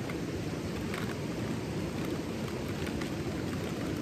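Steady low rushing noise of the outdoors, with a few faint crinkles as a foil meal pouch is handled.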